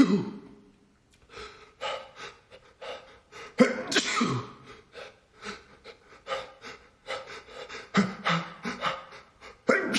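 A man's allergic sneezing fit: a run of short hitching, gasping breaths broken by several loud, sharp sneezes, the loudest about a third of the way in. The fit is set off by a cat allergy.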